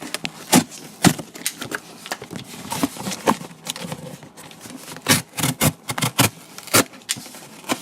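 Cardboard being cut: irregular sharp snips and crunches with rough scraping between them, coming quickest about five to six and a half seconds in.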